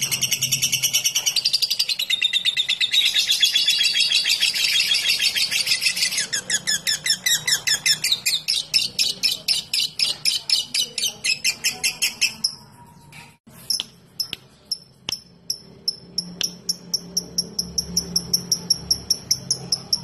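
Fischer's lovebird giving a long, very fast chattering trill, the 'ngekek' song, which loosens into distinct rapid notes. About two-thirds of the way in it breaks off briefly, then goes on as sharp ticking notes at about four a second ('ngetik').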